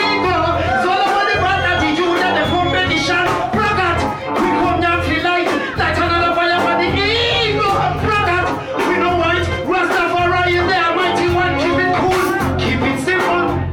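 Live reggae band with a male vocalist singing into a microphone over a steady, pulsing bass line and drums.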